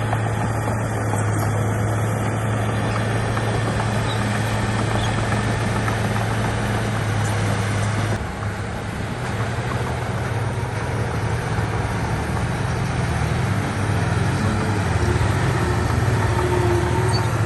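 Diesel engine of heavy earthmoving equipment running steadily with a low hum; the engine note shifts abruptly about eight seconds in.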